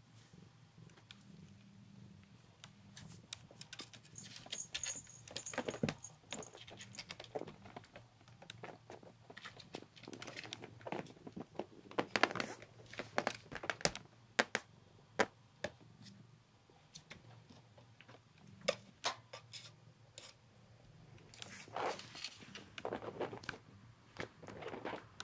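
A kitten playing in a cloth hammock: irregular scratches, taps and rustles of its claws and paws on the fabric and its frame, over a faint steady low hum.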